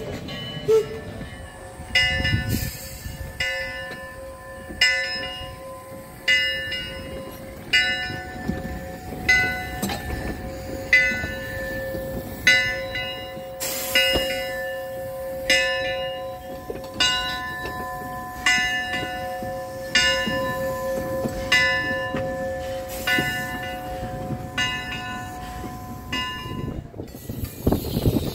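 Steam locomotive bell ringing in an even swing, a stroke a little faster than once a second, each stroke ringing on into the next over a faint hiss and rumble. The ringing stops near the end.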